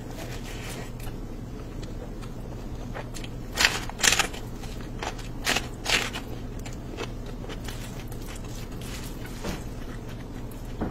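Close-miked eating sounds: crisp crunching bites and chewing of rice and a green chili eaten by hand. The loudest crunches come in two clusters, about a third of the way in and near the middle, over a steady low hum.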